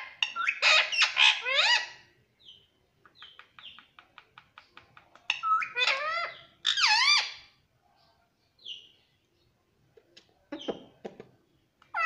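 Indian ringneck parakeet calling in three bursts of quick, sharply swooping chatter, near the start, in the middle and briefly near the end, with a run of quick clicks between the first two.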